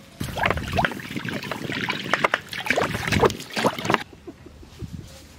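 Water splashing and gurgling into an iron kadai over a wood fire. The sound is loud and busy, then cuts off suddenly about four seconds in.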